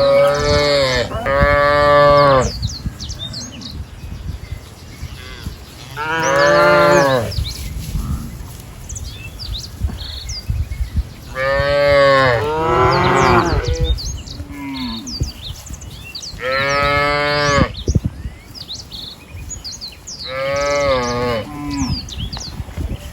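Cattle mooing: about seven drawn-out calls, each rising and then falling in pitch and lasting one to two seconds, some in pairs, several seconds apart. Small birds chirp throughout.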